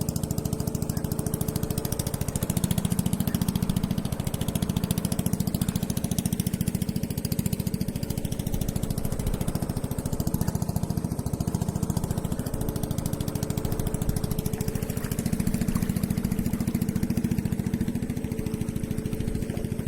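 Small engine running steadily at an even speed, its level swelling slightly now and then.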